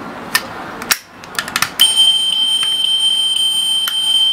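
Diecast toy Toyota FJ Cruiser: a few sharp plastic-and-metal clicks as its door is snapped shut, then, from about two seconds in, a steady high electronic beep-like tone from the toy's sound chip, with light ticks.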